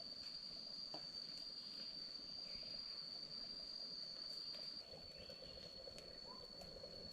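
Night insect calling: one steady, unbroken high-pitched tone.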